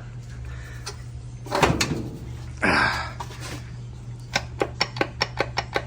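Metal handling noises from a washer's removed gear case: a knock and a short scrape, then a quick even run of sharp metallic clicks, about five a second. The clicks are the loose shaft knocking as it is worked up and down, the play that let the pulley rub and grind. A low steady hum runs underneath.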